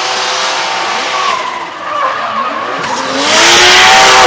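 Drift car sliding through a corner: the engine revs up and down over a steady screech of sliding tyres. It gets much louder about three seconds in as the car comes close.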